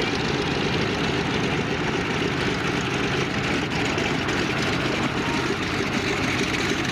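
Vought F4U Corsair's 18-cylinder Pratt & Whitney R-2800 radial engine and propeller running steadily at low taxiing power, a deep, evenly pulsing rumble.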